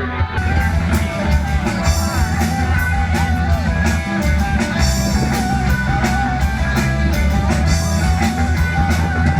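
Rock band playing: drum kit with a steady beat, guitar and singing.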